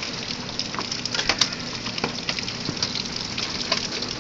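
Hail and heavy rain pelting down: a steady rush of rain with many sharp ticks of hailstones striking.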